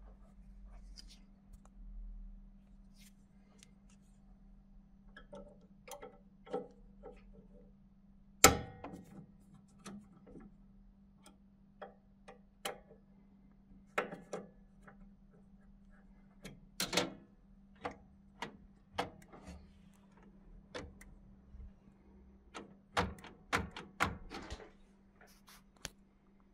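Scattered clicks and knocks from a T-handle hex key and hands working the mounting screws of a CO2 laser cutter's X-axis rail. There is a sharp click about eight seconds in and a quick cluster of knocks near the end, over a faint steady hum.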